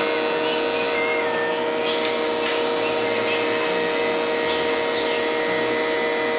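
Electric hair trimmer running with a steady buzz as its blade edges up a hairline.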